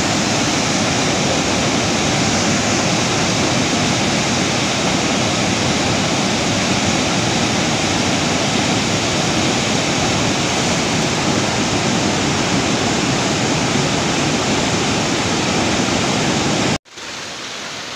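Muddy floodwater of a swollen river rushing and churning over rocks: a loud, steady roar of white water. It cuts off suddenly near the end, giving way to a quieter steady hiss.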